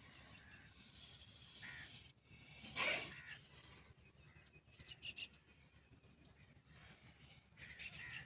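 Crows cawing a few times against faint outdoor background, the loudest caw about three seconds in.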